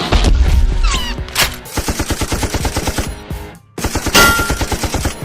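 Rapid automatic gunfire sound effect, about six or seven shots a second, with a heavy boom at the start and a brief break near the end before the firing resumes.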